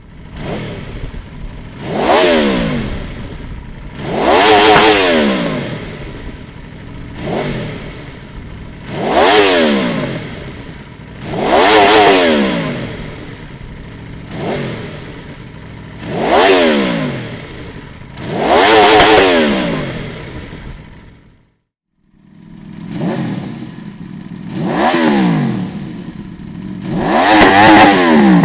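Aprilia RSV4's V4 engine through a Dominator aftermarket silencer, revved in repeated throttle blips, each rising and falling in pitch, about ten in all with a brief gap about three quarters of the way through.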